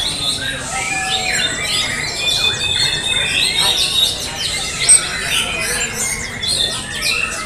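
Several caged white-rumped shamas (murai batu) singing at once: a dense, overlapping tangle of varied high whistles, trills and chirps, with one sharp loud note about five seconds in.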